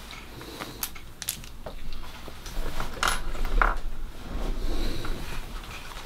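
Small hard objects clicking and clinking as they are handled and moved about by hand, a handful of separate sharp clicks, the loudest a little after three seconds in, over low handling rumble.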